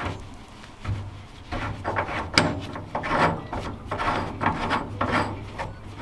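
Repeated rubbing and scraping strokes as a metal heat-pump pipe is worked by hand into place at its fitting.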